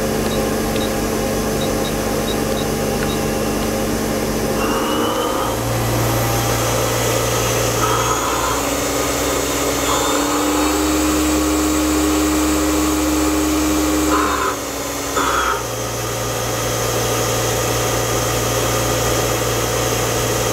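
Okuma Cadet LNC-8 CNC lathe running its spindle under power: a steady machine hum whose tones change about five, ten and fifteen seconds in.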